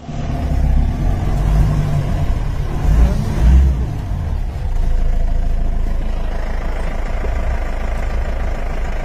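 Vehicle engine running slowly, heard from inside the cab, with louder low rumbles about three seconds in.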